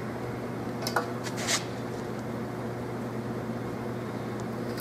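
A steady low mechanical hum, with a sharp metallic click about a second in and a brief scrape just after, as a tool is handled at the tire's valve stem.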